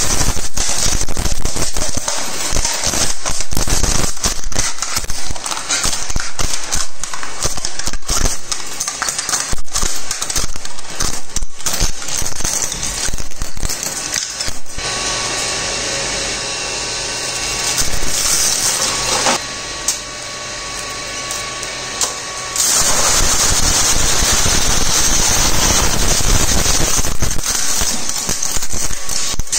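DS4007 twin-shaft e-waste shredder's toothed cutters crunching and cracking rigid plastic sheets in a dense run of snaps. About midway the load clears and the machine runs with a steady whine. For the last several seconds the crunching of plastic starts again.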